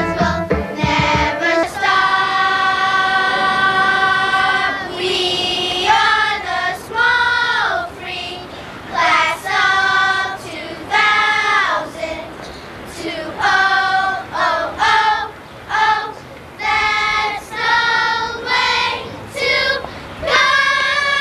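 Children's choir singing: one long held note, then shorter sung phrases broken by brief pauses.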